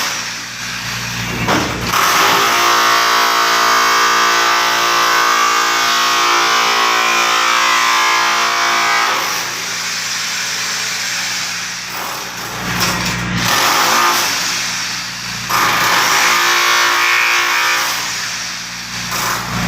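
A motor or engine running loudly at a steady pitch, its noise swelling and easing off several times.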